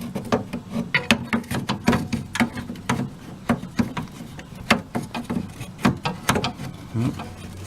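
Irregular clicks and knocks, a few each second, of a replacement DLP television lamp assembly being pushed and worked into its bay, not yet seating.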